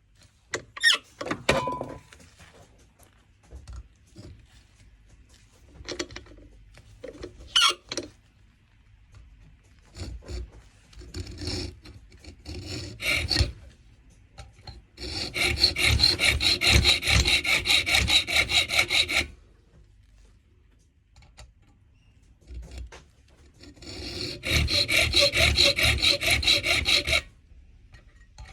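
Steel file rasping across a brass key blank in quick back-and-forth strokes, putting the finishing cuts into a newly made key for a cupboard lock. Short scrapes and clicks come first, then two long runs of filing of about four and three seconds.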